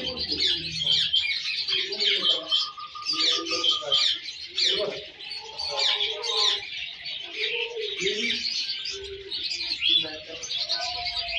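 A dense chorus of caged finches chirping and twittering without pause, many short overlapping calls, with some lower calls mixed in.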